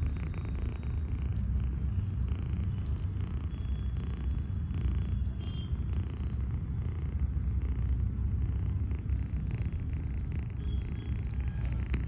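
Persian kitten purring steadily.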